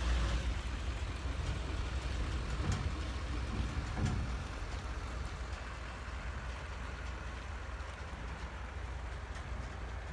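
A vehicle's engine running with a low rumble that slowly fades, with a few light knocks about three and four seconds in.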